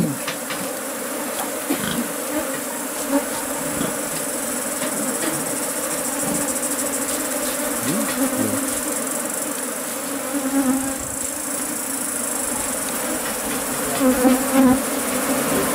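A disturbed colony of honeybees buzzing in a dense cloud around an opened wooden box hive as its comb is cut out: a steady, even hum. A few light knocks come near the end.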